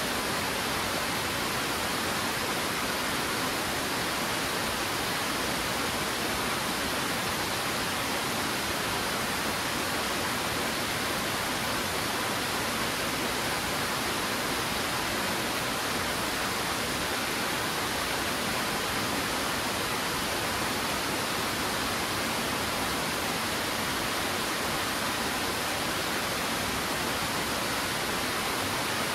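Steady rushing of water from Twin Falls, a waterfall whose two streams tumble down stepped rock ledges. An even, unbroken hiss that does not change.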